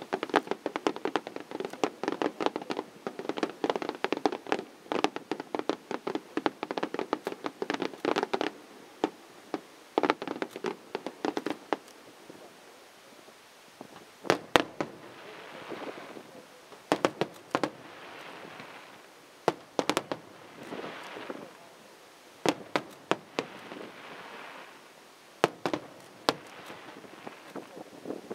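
Fireworks display: a fast volley of many overlapping pops and bangs for the first several seconds, then single louder bangs spaced out, with a fainter hiss between them.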